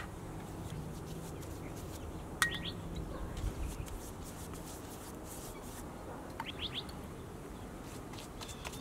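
Birds chirping in two short runs of quick rising notes, one a couple of seconds in and another past the middle, over faint swishing of a paint brush on the boat hull. A single sharp clink with a brief ring comes just before the first chirps and is the loudest sound.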